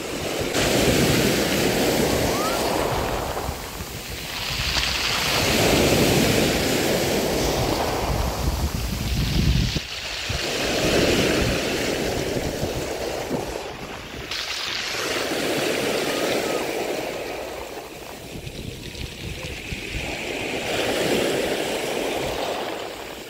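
Sea waves breaking and washing up a beach, the surf swelling and falling back about every five seconds.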